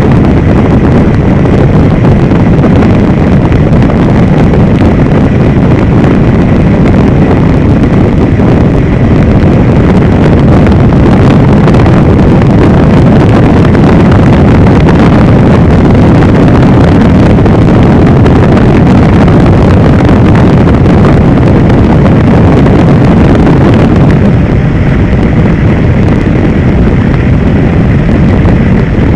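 Helicopter in flight heard from on board: a loud, steady rumble of engine and rotor with a faint steady whine, and wind buffeting the microphone.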